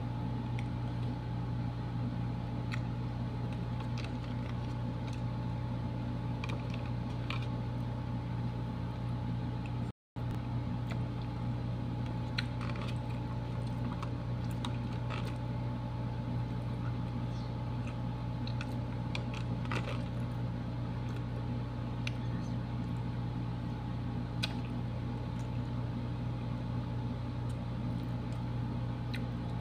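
Steady low mechanical hum, with scattered small clicks and taps of a metal spoon against a clear plastic container and faint eating sounds. The sound cuts out completely for a moment about ten seconds in.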